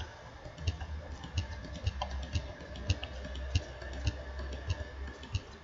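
Computer keyboard keystrokes: irregular taps, a few a second, as zeros are typed into one spreadsheet-style table cell after another.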